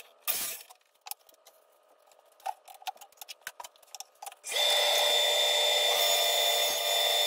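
A few light knocks and clicks of a board being handled. About four and a half seconds in, a woodshop power tool at the table saw switches on abruptly and runs steadily, with a high, even whine over a loud rushing noise.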